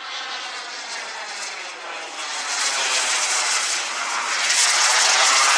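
Radio-controlled PST Reaction model jet flying past overhead: a steady rushing jet whoosh that grows louder as it comes closer.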